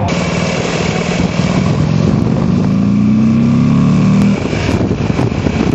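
A motorcycle engine accelerating, its pitch climbing for a couple of seconds before the throttle comes off sharply about four seconds in, over a steady background of other traffic and noise.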